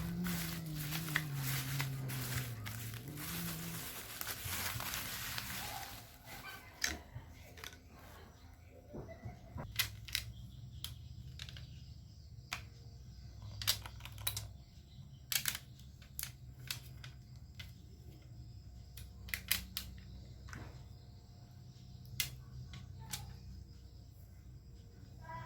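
Scattered sharp clicks and taps of small plastic and metal parts being handled on an opened laptop, over a faint steady hum. A hiss and a low, brief voice-like sound come first, ending about six seconds in.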